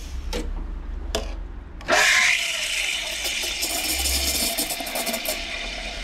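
Two sharp knocks, then an electric coffee grinder's motor starting about two seconds in and running steadily.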